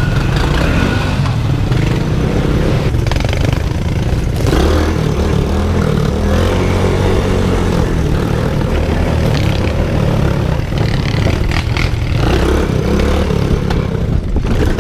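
Small off-road vehicle engine running steadily, loud and close, with a few knocks and clatters along the way.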